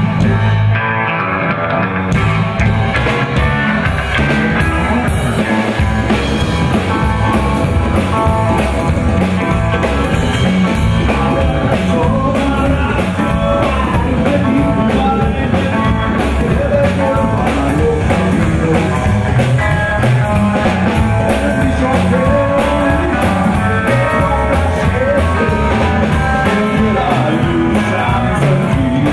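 A live rockabilly band playing: electric guitar, upright double bass and a drum kit played with sticks, at a steady, driving beat.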